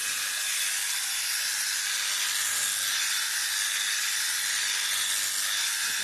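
Electric sheep-shearing clippers running steadily, a continuous hissing buzz, as they cut through long, matted fleece.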